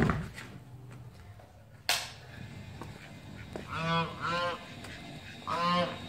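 A loud knock right at the start and a sharp click about two seconds in, then a domestic duck quacking three times, the third quack longer than the first two.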